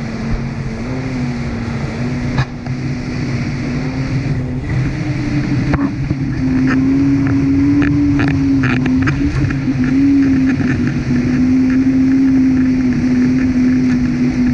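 Personal watercraft engine running at speed. Its steady note climbs in pitch about five seconds in as the throttle opens, and it grows louder a second later, over the rush of water and spray along the hull.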